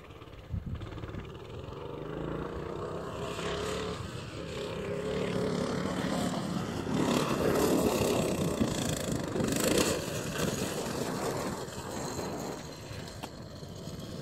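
Coleman minibike's small engine running as it is ridden over sand, its pitch rising and falling with the throttle. It grows louder toward the middle as the bike comes close, then eases off as it moves away.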